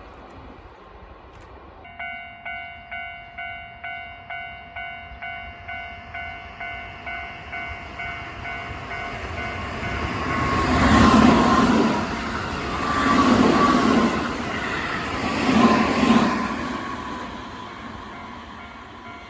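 Level-crossing warning bell starts ringing about two seconds in, about two dings a second, then a Keihan electric train approaches and passes over the crossing, its noise building and peaking in three loud surges before fading, with the bell still sounding underneath.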